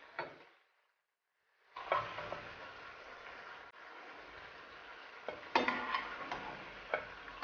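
Meatballs sizzling in hot frying oil in a pan. A wire skimmer clinks sharply against the pan several times in the second half as they are lifted out. The sound drops out entirely for about a second and a half near the start.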